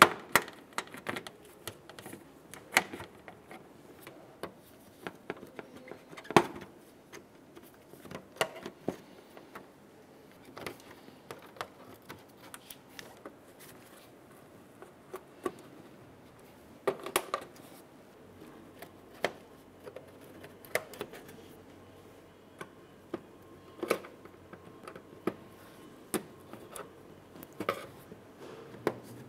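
Plastic push clips being pried up and pulled out of a plastic trim cover with a metal panel clip tool: scattered sharp plastic clicks and taps, about one every second or two.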